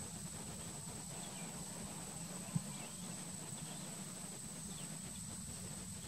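Faint, scattered short calls of perched bee-eaters over a steady high whine and a low background hum. One brief soft thump about two and a half seconds in.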